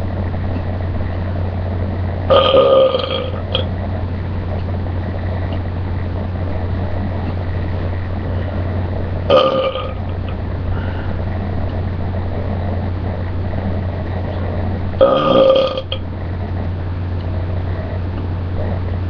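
A person belching loudly three times, each belch under a second long, spaced about six to seven seconds apart.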